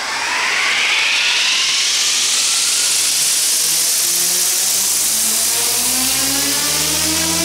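Alzrc Devil 420 electric RC helicopter spooling up from a standstill. The brushless motor's whine and the rotor's pitch rise quickly at first, then keep climbing slowly as the head comes up to speed.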